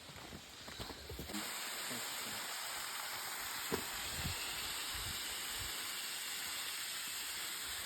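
A steady rush of falling water sets in abruptly about a second in, with a couple of soft thumps partway through.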